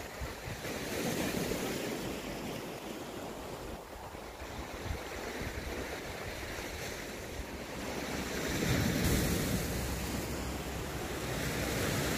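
Sea waves washing ashore, with wind blowing on the microphone; the surf swells about a second in and again around nine seconds.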